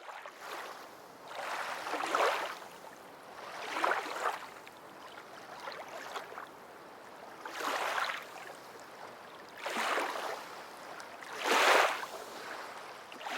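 Kayak paddle strokes in river water: a splash swells roughly every two seconds over a steady wash of moving water.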